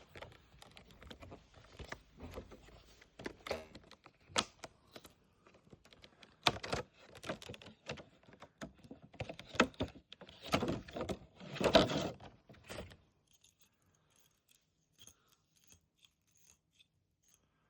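Unboxing handling noises: packaging rustling and scraping, with many small clicks and knocks as the box and kendama are handled. The sound is busiest and loudest about ten to twelve seconds in, then falls to a few faint ticks.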